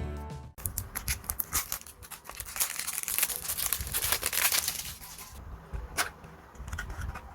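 Plastic cellophane wrapper being torn and crinkled off a cosmetics box. The crackling is dense for several seconds, then thins to scattered crinkles. Background music cuts off just after the start.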